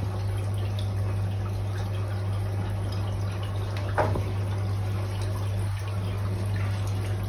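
Aquarium pump running with a steady low hum, its outlet splashing and trickling water into the turtle tank. One brief sharp sound about four seconds in.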